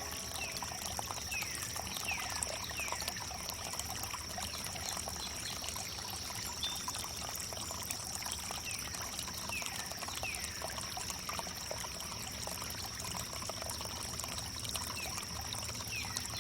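Water pouring and trickling steadily over wood, with a thin steady high-pitched tone and short falling chirps every second or so.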